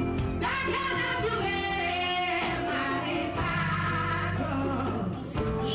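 Live band music with women singing lead, holding long notes over a steady bass line.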